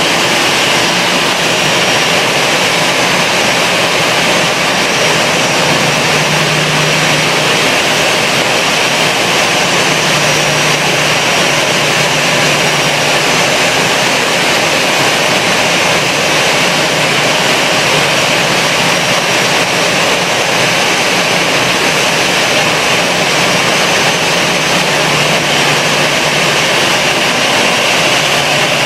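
Airbus A320's jet engines running with a steady, unchanging noise.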